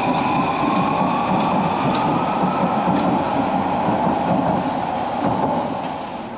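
Paris Métro train running, a steady loud rumble of wheels and car with a motor whine that rises in pitch over the first couple of seconds and then holds steady.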